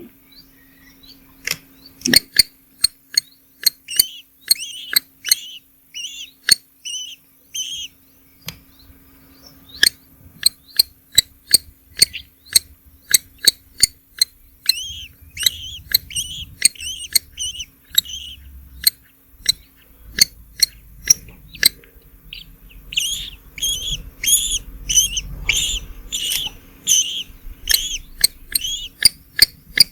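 Nestling birds chirping in three bouts of rapid, repeated high chirps, mixed with many sharp clicks.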